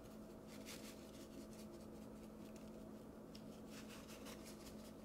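Faint, soft rustling as dry ranch seasoning mix is shaken from its packet onto a raw beef roast, over a steady low hum.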